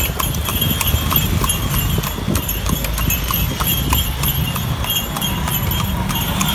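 A horse's hooves clip-clopping in a steady rhythm on a paved road as it pulls a horse cart, over a steady low rumble.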